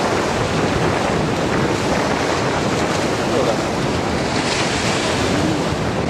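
Storm waves breaking and washing against a sloping concrete reservoir bank, with strong wind buffeting the microphone.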